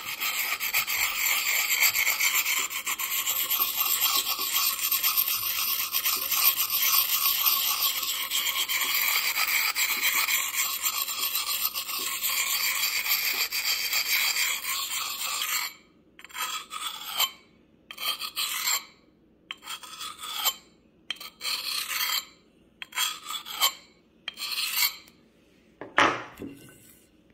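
Steel hatchet edge being ground on a hand-held Fallkniven DC4 sharpening stone, working the second side. About fifteen seconds of continuous rasping from circular strokes, then a series of separate short strokes, about one a second, that stop near the end.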